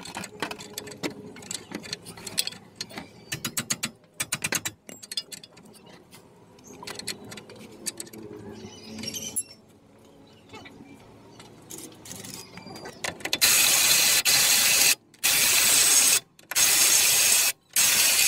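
Hand tools working on a vehicle's wheel hub during a bearing replacement: metal clicks and clinks with a fast run of ratchet-like clicking, then four loud bursts of steady rushing noise, each about a second or more, with short gaps between them.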